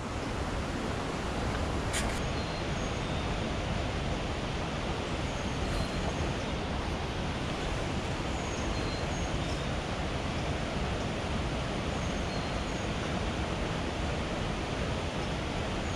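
Steady rush of stream water pouring over a cascade into the pool, an even hiss that does not change.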